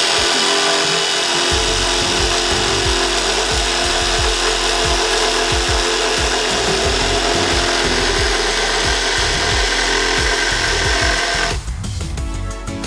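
Ryobi 18V One+ HP brushless reciprocating saw running steadily, cutting through wood, then stopping about a second before the end. Music with a beat plays underneath.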